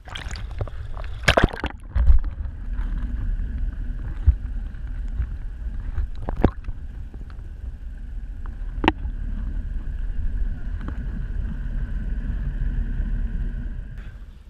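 Sea water heard from under the surface: a steady muffled low rumble with a steady higher hum, broken by a couple of sharp clicks. There are loud knocks near the start, and the sound cuts off shortly before the end.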